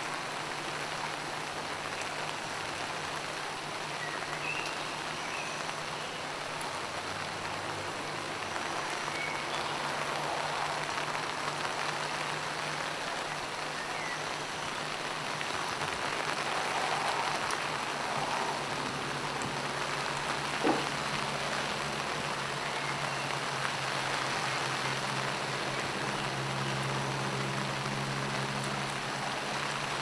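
Steady rain falling, with a low hum underneath and a single sharp tap about two-thirds of the way through.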